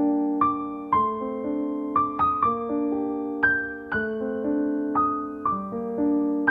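Background music: a soft, slow piano melody, notes struck about twice a second and left to ring.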